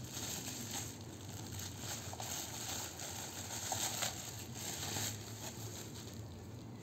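Plastic bubble-wrap packaging crinkling and rustling in irregular crackles as it is handled.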